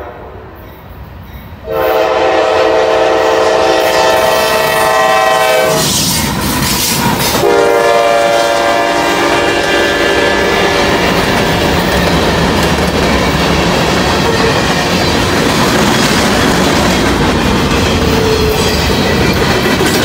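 Freight locomotive's air horn sounding two long blasts of a chord of several tones, each about four seconds, as it approaches a grade crossing. Then the loud steady rumble and clatter of a mixed manifest freight train's cars rolling past close by.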